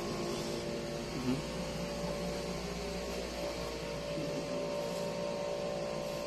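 Room air conditioner running: a steady hum with a few held tones.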